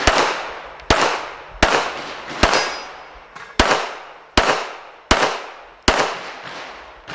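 A 9mm Smith & Wesson M&P9 Pro pistol firing rapidly in a string of eight shots, most under a second apart with a slightly longer pause in the middle. Each shot is followed by a long echoing tail.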